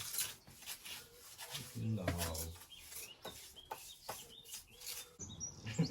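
A steel pointing tool scraping and rubbing mortar into a tight joint between stones, in short irregular strokes.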